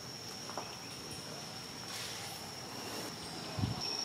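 Insects keep up a steady, high-pitched drone on one unchanging note, with a short swell of hiss about halfway through and a low thump near the end.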